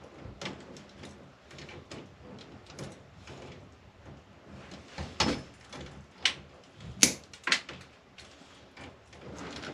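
Scattered small clicks, taps and knocks of hands and pliers working wires and a wall switch into an electrical box, with a few sharper clicks in the second half.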